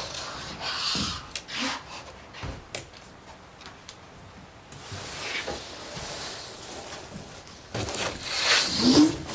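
Clicks and rubbing from a caulking gun as panel adhesive is laid on a PVC cabinet panel. Near the end comes the louder scraping and knocking of the large panel being lifted and handled against the cabinet.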